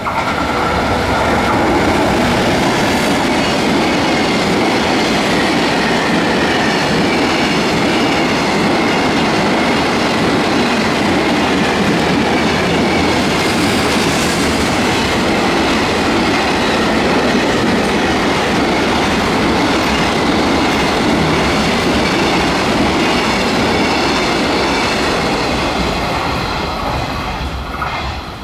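Container freight train hauled by a JR Freight EF210 electric locomotive running through a station at speed. The loud, steady rumble and clatter of wheels on rail carries on as the locomotive and a long line of container flatcars pass, then drops away quickly near the end as the last wagon goes by.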